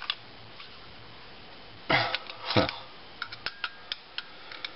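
Side cutters working at a brass pressure relief valve: light clicks and taps of metal tool on metal, with two short, louder sounds that fall in pitch about two seconds in, then a run of sharp clicks.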